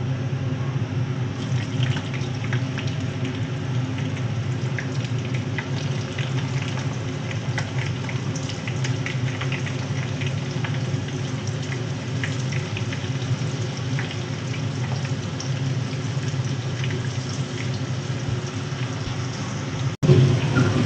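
Food frying in hot oil in a pan: a steady sizzle dotted with many small crackles and pops over a low steady hum. The sound breaks off sharply near the end.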